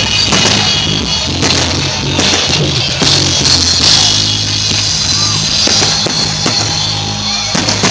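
Loud rock music with drums, with firework bangs and crackles going off over it.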